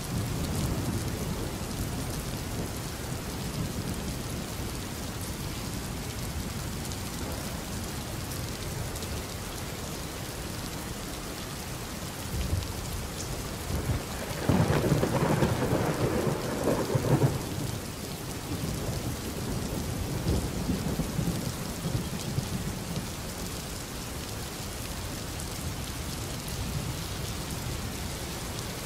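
Steady rain with low rolls of thunder. The loudest roll comes about halfway through and lasts some three seconds.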